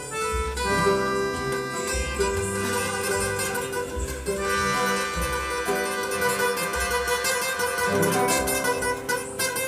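Instrumental ensemble music: plucked strings with long held melody notes over a pulsing bass line.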